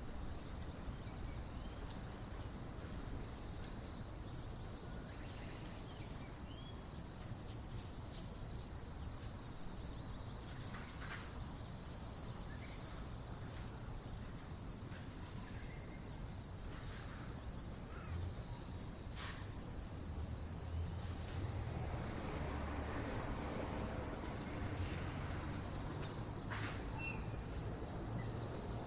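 Dense chorus of insects, a steady high-pitched shrilling that never lets up, with a few faint short chirps now and then.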